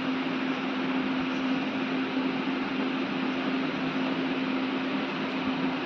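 Steady low hum over an even hiss, with no distinct cutting or knocking sounds.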